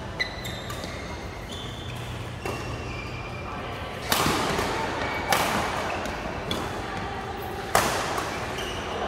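Badminton rackets striking a shuttlecock in a doubles rally, each hit sharp and echoing in a large hall: about five hits, the hardest an overhead smash about four seconds in, with others a second or more apart. Short squeaks from court shoes sound between the hits.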